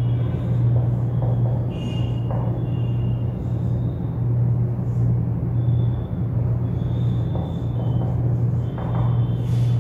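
Steady low hum, with faint short squeaks of a marker writing on a whiteboard scattered through it.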